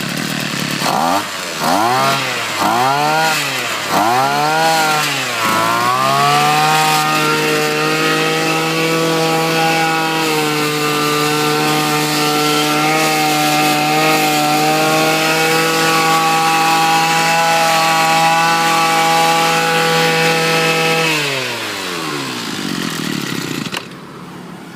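Robin NB 3220 two-stroke brush cutter engine being test-run: revved up and down four times in quick blips, then held at a steady high speed for about fifteen seconds before the throttle is released and it drops back toward idle near the end.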